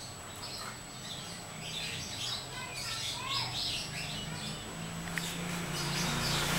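Small birds chirping in quick short calls through the first few seconds, with a low hum growing louder near the end.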